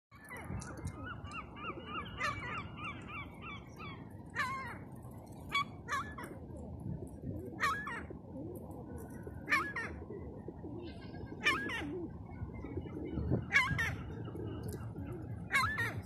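Herring gull calling: a fast run of short yelping notes, about four a second, for the first few seconds, then single loud calls every second or two. Behind it is a steady low rush of background noise.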